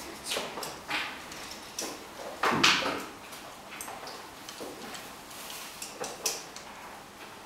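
Soroban abacus beads being flicked by fingers, giving light, irregular clicks with one louder knock about two and a half seconds in.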